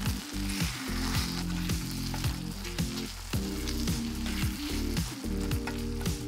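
Spaghetti in tomato sauce sizzling in a hot nonstick frying pan while a utensil stirs and tosses it, with small clicks and scrapes against the pan. A low beat of background music runs underneath.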